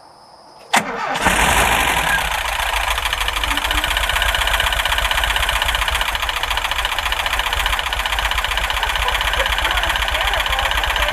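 1984 VW Vanagon's freshly rebuilt water-cooled flat-four engine starting: a sharp click about a second in, then it catches almost at once and settles into a steady idle. It is the first start after a full rebuild, and it fires on the first try.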